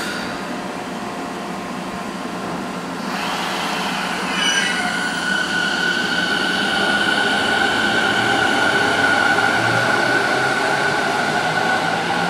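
JR Musashino Line 209 series 500 electric train pulling out, with a steady high-pitched squealing whine of several tones that sets in a few seconds in and holds. This is the abnormal noise the uploader worries may mean something is wrong with the train.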